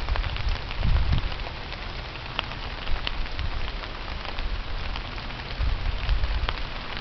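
Steady rain falling on a field of hemp plants, a dense hiss full of small individual drop ticks on the leaves. Low rumbles of wind on the microphone come and go, about a second in and again near the end.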